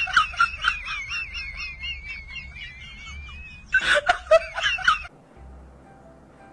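A comic sound effect: a burst of rapid, choppy high pulses, then a wavering high tone for about three seconds, then the same burst again about four seconds in. It cuts off suddenly about five seconds in, leaving faint background music.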